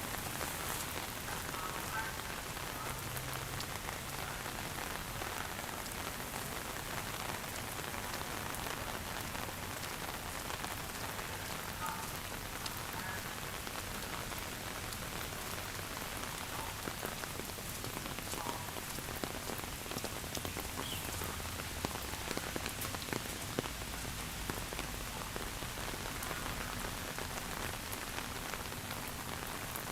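Steady rain falling, a constant hiss with scattered sharper drop ticks that grow a little more frequent in the second half.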